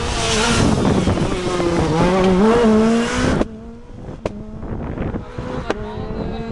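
A rally car passing at speed, its engine revving up and shifting through the gears. About three and a half seconds in the sound drops abruptly to a fainter engine note that slowly rises, with two sharp clicks.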